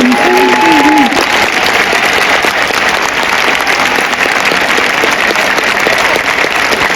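Large baseball stadium crowd applauding, a dense steady clatter of clapping. A voice is heard briefly at the start and stops about a second in.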